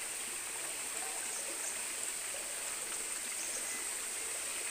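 Flowing water running steadily, like a stream, with a constant high hiss.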